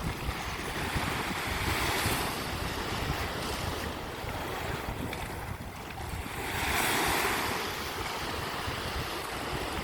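Sea waves breaking on a beach, the surf swelling twice, the second and louder about seven seconds in, with wind buffeting the microphone.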